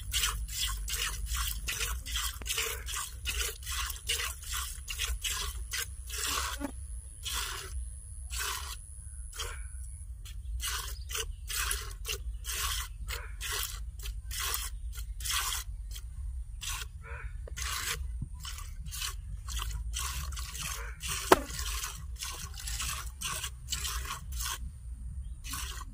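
Cow being milked by hand into a plastic bowl: milk squirts in quick hissing jets, about two to three a second, with short pauses now and then. A steady low rumble runs underneath, and there is one sharp click about three-quarters of the way through.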